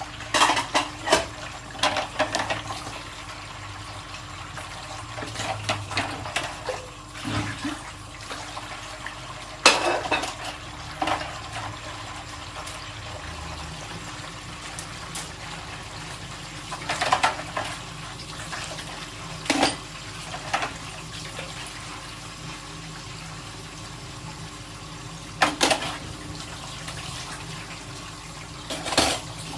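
Washing dishes by hand at a sink: a tap running steadily, with dishes and cutlery clinking and clattering now and then, most often in the first few seconds.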